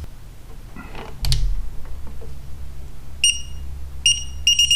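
Digital torque wrench beeping as a bolt is tightened to its 20 ft-lb setting: a short beep about three seconds in, another a second later, then a fast string of beeps near the end as the set torque is reached. A low hum runs underneath.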